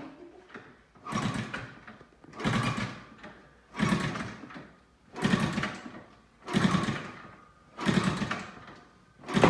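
Honda CT70's small single-cylinder four-stroke engine being kick-started over and over: about seven kicks, each spinning the engine in a short burst that dies away before the next kick, with no steady running between. This is the first start attempt after a fresh top-end rebuild with a new piston and cylinder.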